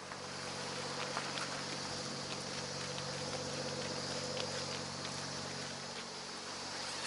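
A steady low engine hum that starts abruptly and holds, with a steady high hiss and scattered light ticks over it.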